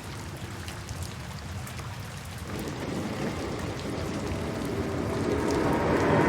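Steady rain falling, an even hiss of drops, which grows gradually louder from about halfway through as a deeper swell builds beneath it.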